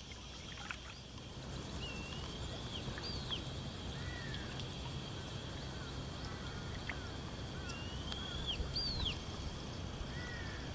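Birds calling: whistled notes that rise and then flick sharply up and down, heard twice about six seconds apart, with softer short falling chirps in between, over a low steady background noise.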